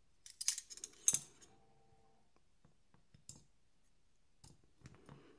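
Small sharp clicks and taps of metal folding-knife parts being handled and pressed together during reassembly: a part being snapped down that does not catch in place. A cluster of clicks comes about half a second in and a sharper one at about a second, then a few lighter ticks.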